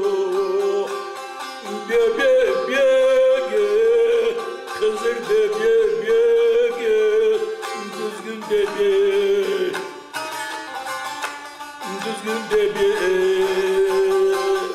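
Bağlama (long-necked Anatolian saz) plucked with a plectrum, playing a traditional Dersim Alevi folk melody, with a man singing over parts of it.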